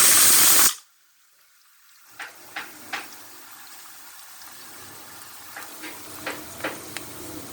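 Pressure cooker whistle releasing steam in a loud, high hiss that cuts off suddenly under a second in. A faint steady noise with scattered sharp clicks and pops follows.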